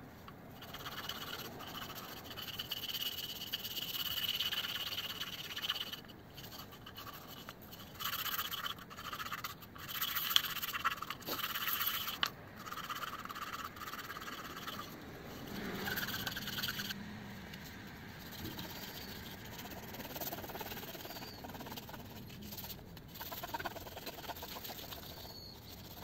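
A small fatwood (resin-rich pine) ring being rubbed by hand on a flat abrasive block: scratchy sanding strokes in bouts. It is loudest in the first half and softer in the second.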